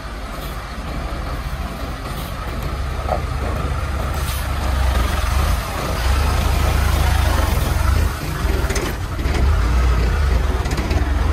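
Sinotruk concrete mixer truck's diesel engine rumbling deep as the truck drives slowly past at close range, growing louder as it draws level. There is a brief hiss about nine seconds in.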